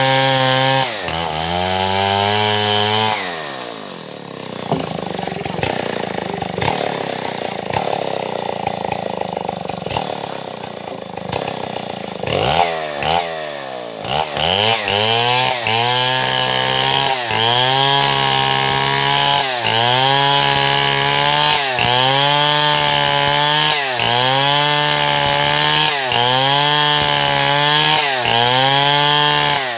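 Stihl MS 070 two-stroke chainsaw cutting wood. It runs at high revs and drops off about a second in, then from about halfway the engine note dips and recovers in a steady rhythm, roughly once every second and a half, as the saw works through the cut.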